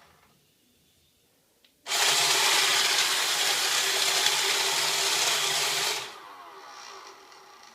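A click, then a Roomba Discovery robot vacuum's motor and brushes start up and run steadily with a hum for about four seconds before cutting out suddenly, leaving a fainter whir that fades. The owner takes its behaviour for the Roomba's 'circle dance' fault.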